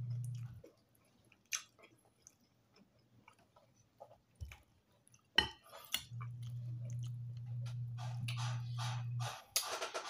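Close-up eating sounds of a person eating rice and fish by hand: chewing and wet mouth noises, thickest near the end. A few sharp clicks, the loudest about halfway through, and a steady low hum that stops early on and returns for about three seconds later.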